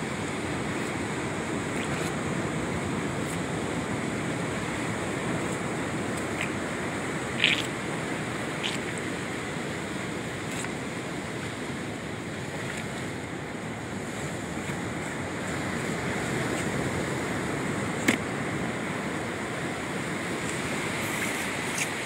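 Sea surf washing steadily on the shore, with a few short sharp clicks on top, the two loudest about a third of the way in and again near the end.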